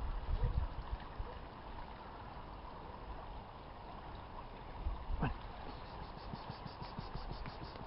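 Wind buffeting the microphone for the first second, then a faint steady outdoor hiss with scattered light rustles and ticks, and one brief sharp sound about five seconds in.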